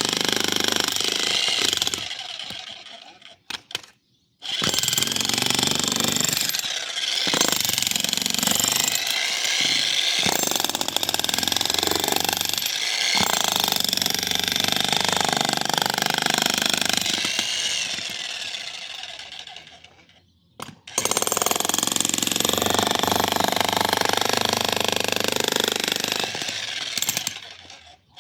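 A 2200-watt electric jackhammer hammering into a concrete slab, breaking it up. It runs in long spells and stops briefly about three to four seconds in, again about twenty seconds in, and near the end.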